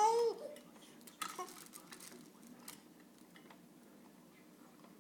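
A baby's short babbling vocalization, high and wavering in pitch, ending within the first half-second. It is followed by faint scattered clicks and taps, with a small cluster about a second in.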